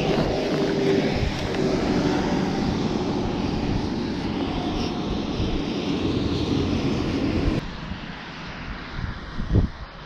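A steady engine drone with rustling that cuts off abruptly about three-quarters of the way in. Fainter wind noise and a single thump follow near the end.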